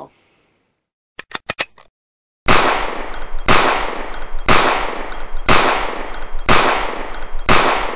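A quick run of sharp mechanical clicks, then six gunshots about a second apart, each with a long echoing tail and a faint high ring after it.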